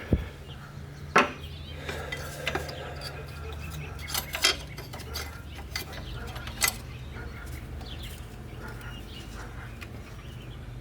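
Scattered small metal clicks and clinks of hand work as a toothed locking washer is fitted onto the shift-linkage fastener, over a steady low hum.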